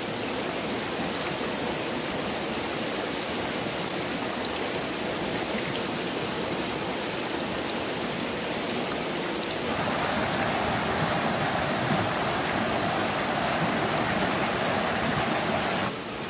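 Steady rush of a flowing mountain stream, becoming fuller and louder about ten seconds in.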